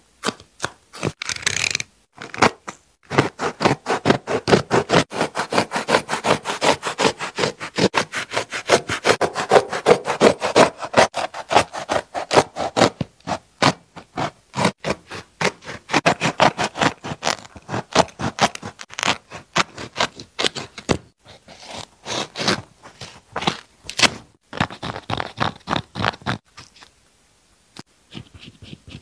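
Rapid, repeated scraping strokes as a blade saws through a sneaker's sole and upper, with hands rubbing the shoe's fabric and suede. There are a few short pauses, the longest near the end.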